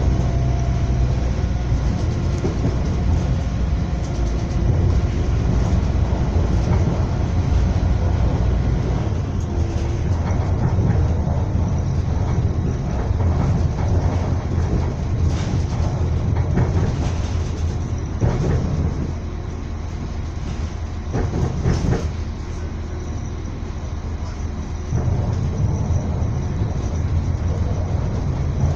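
Train running along the track, heard from inside a carriage: a steady low rumble with scattered clacks of the wheels over the rails. It runs quieter for a few seconds about two-thirds through, then picks up again.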